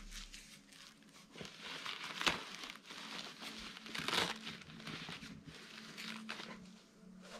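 Rustling and crinkling as a padded camera shoulder bag and its velcro-fastened inner dividers are handled and moved into place, with two louder brief rustles about two and four seconds in.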